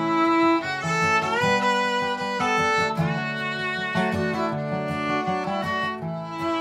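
A fiddle playing a bowed melody over a strummed acoustic guitar, an instrumental break between sung verses. About a second and a half in, one fiddle note slides up into the next.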